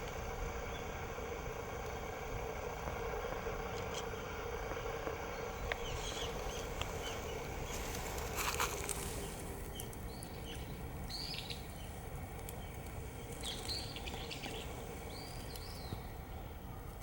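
Steady electronic noise and hum from a cheap digital camera's own recording, over low outdoor rumble. Several short bird chirps come in during the second half.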